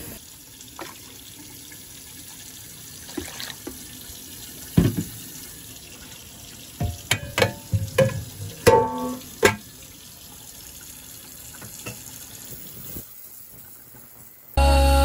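Stainless steel lid of an ultrasonic cleaner being handled and set onto the tank: a knock about five seconds in, then a run of sharp metal clanks and rattles over a few seconds, above a faint steady background noise. Music starts just at the end.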